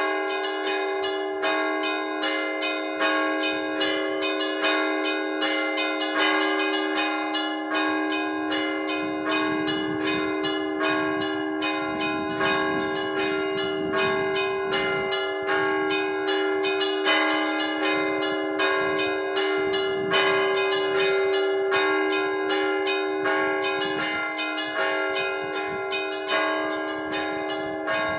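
Orthodox church bells rung by a bell ringer: quick, rhythmic strikes on the smaller bells over the steady, sustained ringing of the larger ones, with a heavier accent about every two seconds.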